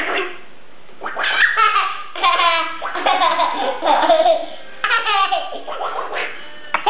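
Young child laughing hard while being tickled, in four or five bursts of high-pitched giggles with short catches of breath between them.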